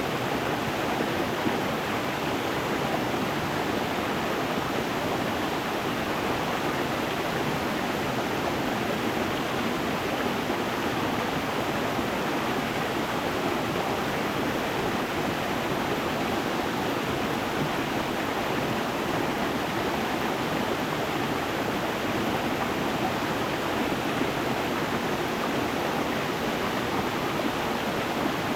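A stream running over stones: a steady, even rush of water without pause or change.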